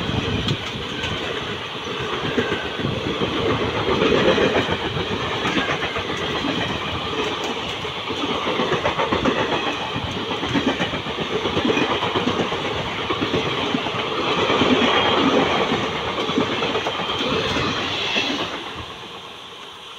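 Indian Railways passenger train's coaches passing at speed, wheels clicking rapidly over rail joints over a steady rumble. The noise falls away suddenly near the end as the last coach goes by.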